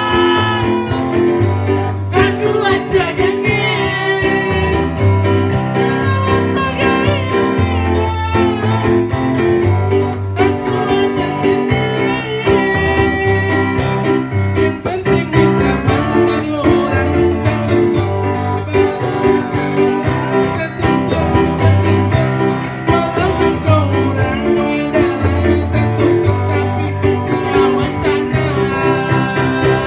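A man singing into a microphone over a strummed acoustic guitar, with a second male voice joining in at times.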